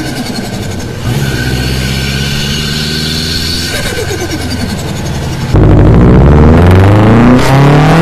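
Turbocharged Subaru WRX flat-four engine pulling under acceleration, the revs dropping and picking up again about four seconds in. About five and a half seconds in, a cut brings a much louder car engine revving.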